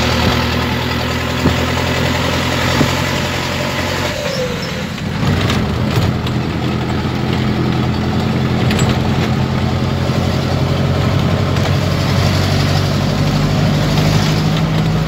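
Avia A75 truck's four-cylinder diesel engine running under way, a steady loud drone heard from inside the cab, blowing through a cracked exhaust. The note dips briefly about four seconds in, then picks up again.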